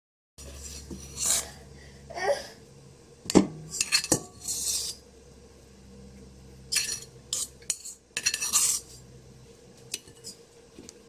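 A spoon scraping and clinking against bowls as ground shrimp is scooped onto mashed potato, in short scrapes with a couple of sharp knocks around three to four seconds in.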